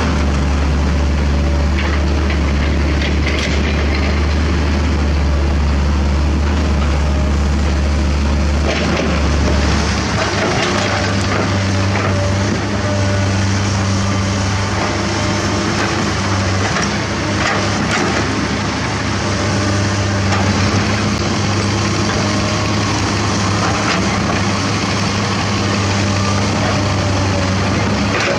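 Diesel excavator engines running under load. First comes a Kobelco SK75 mini excavator close by. About nine seconds in, the low hum changes to a Komatsu PC200 excavator's engine. Occasional short knocks and clatter of limestone rock come from the digging and dumping.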